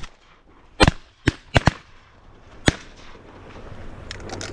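Shotgun shots from duck hunters, about six sharp cracks at irregular intervals and at varying distances, some close and loud, others fainter and farther off.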